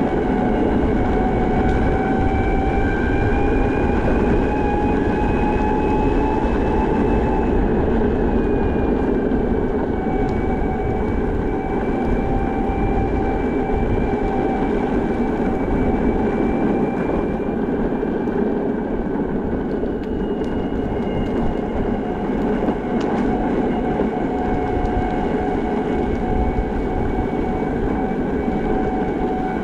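Backfire Zealot electric skateboard's motors whining steadily at riding speed over a dense low rumble of the wheels rolling on pavement. The whine rises a little in pitch, then falls back about nine seconds in.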